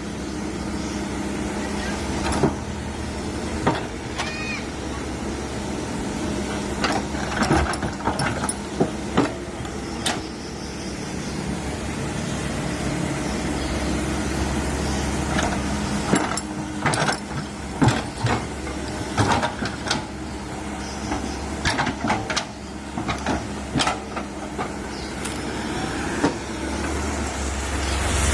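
Komatsu PC130 hydraulic excavator running steadily while digging out a tree stump, with many scattered sharp knocks and cracks from the bucket working against wood and roots.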